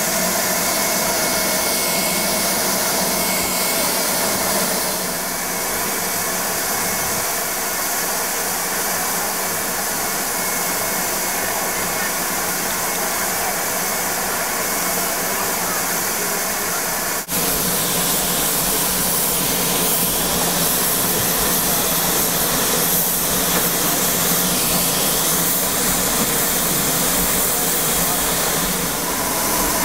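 Steam hissing steadily from a standing Abt rack steam locomotive as it vents steam. The sound breaks off for an instant a little past the middle, then carries on.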